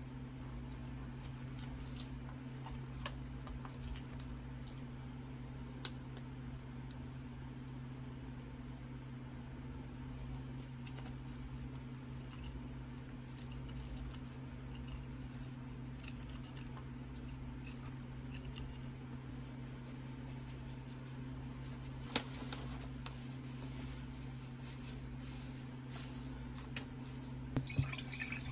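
Soft squelching and ticks from a squeeze bottle of sauce being drizzled over an okonomiyaki, over a steady low hum. Near the end, water is poured from a plastic bottle into a glass.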